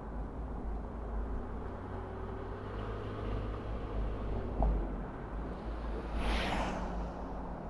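Car driving at road speed: a steady low rumble of tyres and wind. There is a short knock about four and a half seconds in and a brief rushing whoosh about six seconds in.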